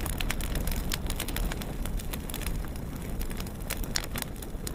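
Fire sound effect: a steady low rumble of burning flames with frequent sharp crackles, easing off slightly toward the end.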